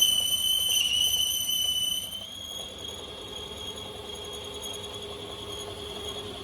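A small high-speed motor whining at a steady high pitch. It is loud for about the first two seconds, then drops to a quieter steady whine with a lower hum joining it.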